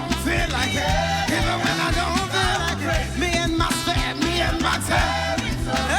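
Live praise-and-worship band playing an upbeat groove with a steady beat.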